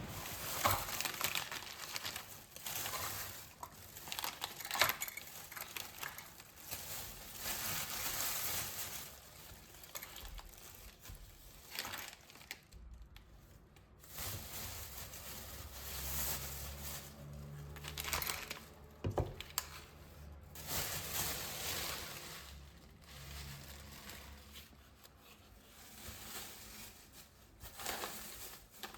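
Irregular crinkling and rustling handling noises, as of packaging being handled, with a low hum joining in the middle stretch.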